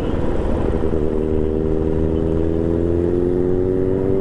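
Royal Enfield motorcycle engine and exhaust running under way; the engine note dips briefly in the first second, then climbs steadily as the bike accelerates.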